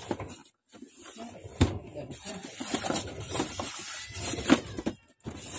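Unpacking noise: a boxed inkjet printer being handled and its foam packing pieces pulled off, with rubbing, rustling and clicks. Two sharp knocks stand out, one about one and a half seconds in and a louder-topped one past the middle.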